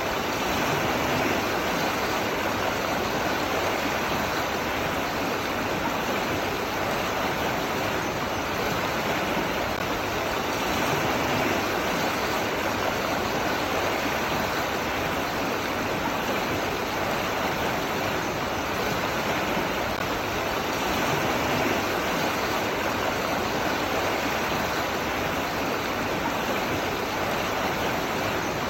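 Running water rushing steadily, a continuous flow that swells slightly in level now and then.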